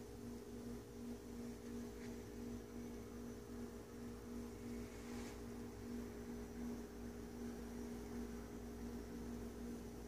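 Steady, faint electrical hum from the terrarium's mains-powered equipment, such as its waterfall pump and fogger, holding one pitch throughout.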